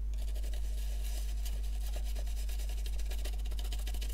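A small brush scrubbing a wet circuit board around a corroded surface-mount chip, a rapid, continuous run of scratchy strokes over a steady low hum. It is scrubbing corrosion off the chip's pins.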